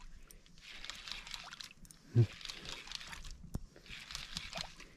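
Water sloshing softly against the hull of a wooden outrigger boat, in uneven patches. There is a short voice sound about two seconds in and a single sharp click about a second and a half later.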